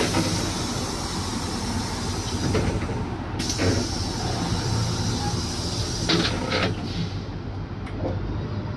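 Cabin noise inside a LiAZ city bus on the move: steady drive and road noise with a low hum, and a few brief rattles about three and a half and six seconds in.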